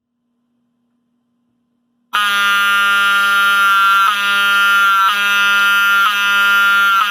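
Wheelock 7002T-24 mechanical fire alarm horn, an older unit, starting abruptly about two seconds in. It gives a loud, buzzy continuous honk with a brief dip about once a second.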